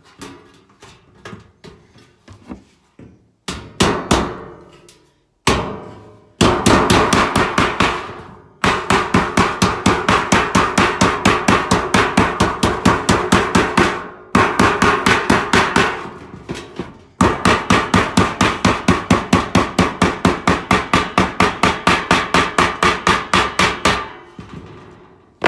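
Hammer beating down the flange of a Pittsburgh lock seam on a galvanized sheet-metal duct fitting to close the seam: a few lighter knocks, then long runs of rapid, steady blows on the sheet metal with a few short pauses.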